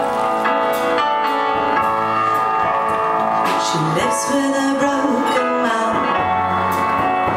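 Live music: a woman singing long, held notes into a microphone over a small band's accompaniment.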